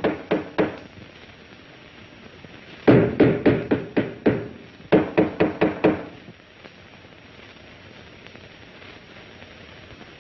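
Hard, rapid knocking and pounding on a wall, several blows a second. A short run ends just at the start, then two longer volleys come about three and five seconds in.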